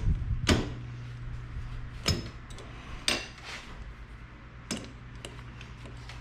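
Metal parts clinking and knocking by hand as a clutch lever is fitted to a handlebar: a handful of sharp clanks, spread irregularly, over a steady low hum.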